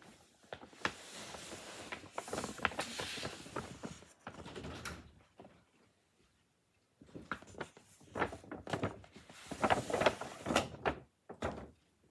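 A paper shopping bag rustling and crinkling as it is handled and a cloth dust bag is pulled out of it. The crackly handling noise comes in two stretches with a quiet pause of about a second and a half between them.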